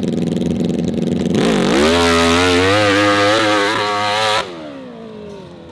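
Off-road motorcycle engine, single pitched note with harmonics, revving hard. The pitch dips and then climbs about a second and a half in and is held high and wavering. Just past four seconds in the engine cuts off sharply and its note falls away as it winds down, which the commentator puts down to a mechanical problem.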